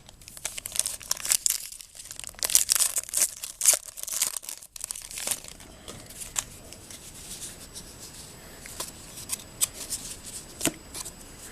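A trading-card pack wrapper being torn open and crinkled for the first five seconds or so, then fainter scattered clicks and rustles.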